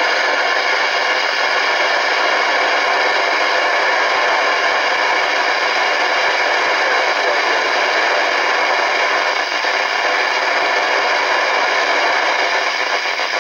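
Shogun CB radio's loudspeaker giving a steady hiss of 11-metre band noise, with no station readable through it.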